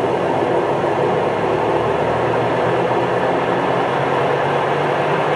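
Huebsch coin-operated top-load washing machine running with a loud, steady mechanical noise that sounds scary. The owner asks whether it is a bearing issue, after a new drive belt replaced a burnt one.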